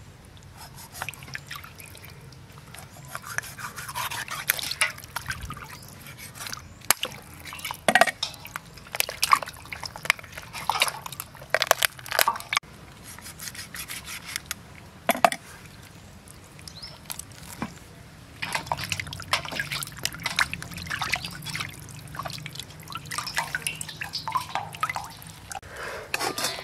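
Water splashing and dripping in a stainless steel basin as a whole plucked chicken is washed and cut with a cleaver. The sound comes as irregular short splashes and clicks.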